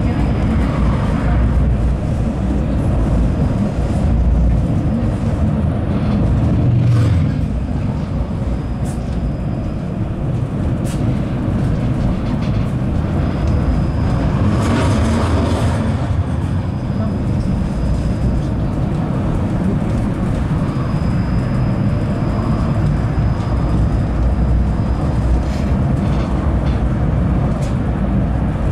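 71-931M Vityaz-M tram running along the track: a steady rumble of wheels on rails, with a faint high-pitched whine that comes and goes and a few short clicks.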